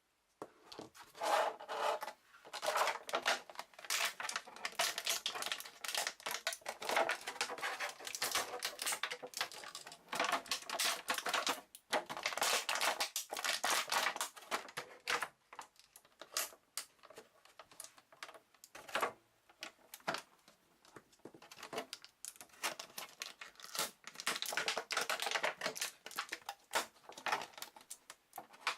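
Packaging of an action figure being handled and opened by hand: an irregular run of clicks, scratches and plastic crinkling, with short pauses.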